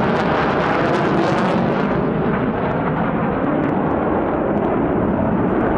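Fighter jets in formation passing overhead: a loud, steady rush of jet engine noise that loses its high hiss about two seconds in as the jets move away.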